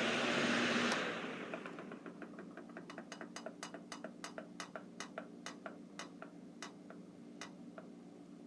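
Old electric fan running with a steady rush of air, switched off about a second in: the rush dies away and the fan gives a run of sharp ticks that come slower and slower as it coasts to a stop. A faint steady hum stays underneath.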